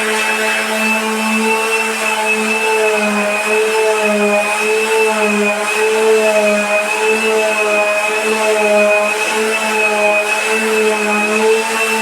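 Electric sander sanding a floor, its motor running steadily with a hum that wavers slightly in pitch.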